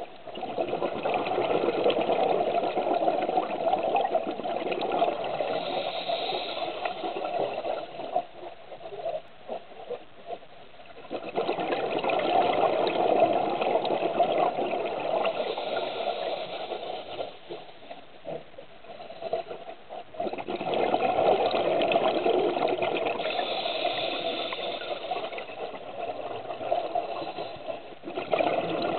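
Scuba exhaust bubbles from a diver's regulator, heard through an underwater camera housing: three long rushes of bubbles lasting several seconds each, with quieter pauses between them holding a few small clicks.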